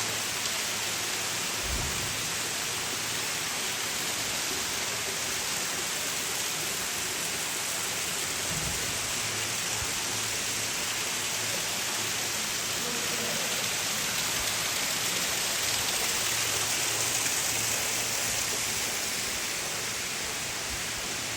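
A steady, even hiss with no pitch or rhythm. It is broken only by two soft low thumps, about two and nine seconds in.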